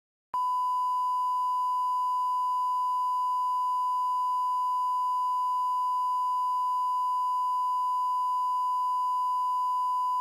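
Steady electronic test tone: one pure beep at a single pitch, held evenly for about ten seconds and cut off sharply, like the line-up tone placed at the head of a film master.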